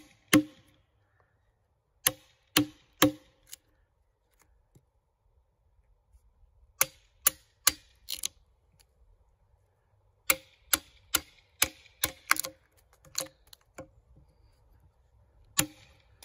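Hammer striking a wood chisel, chipping wood off the end of a log: sharp knocks in short runs of several blows with pauses between, the longest run of about nine blows in the second half.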